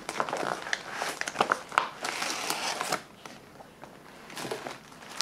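Thick dark brown plastic MRE bag and its plastic-wrapped contents crinkling and rustling as they are handled and pulled out. The rustling is busiest for the first three seconds, then drops to a few faint crackles.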